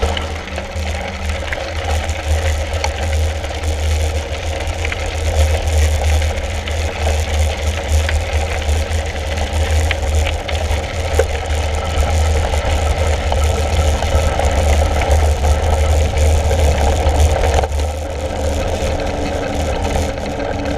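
Mountain bike ridden along a path: wind buffeting the camera microphone as a steady low rumble, with tyre noise and the bike rattling over the rough surface. The rattle and tyre noise ease near the end as the surface turns to smooth tarmac.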